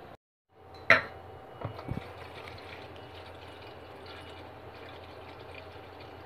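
Kitchen tap water running into a stainless steel pot, filling it. A sharp clank about a second in, then a couple of lighter knocks.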